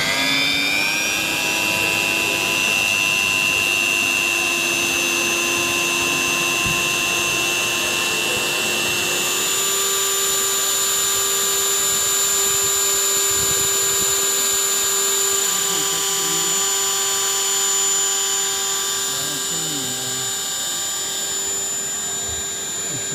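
A Dremel-style handheld rotary tool, used as the spindle of a DIY CNC mill, switched on and winding up to a steady high whine. About ten seconds in the tone shifts as the bit mills into the black sheet on the bed.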